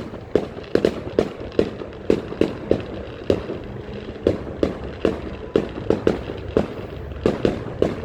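Fireworks bursting overhead in a rapid, irregular string of sharp bangs, about two or three a second.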